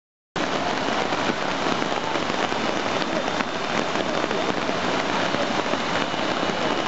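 Steady hiss of heavy rain pouring down onto rushing flash-flood water in the street. It cuts in after a split second of silence at the very start.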